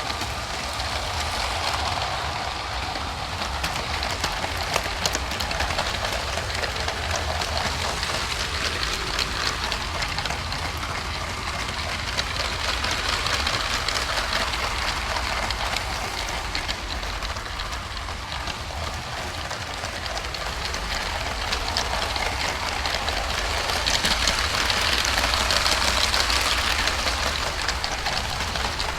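LEGO train running on plastic track, picked up by a camera riding on the wagon: a steady rattling clatter of wheels and couplings, with a low hum underneath. It gets louder for a few seconds near the end.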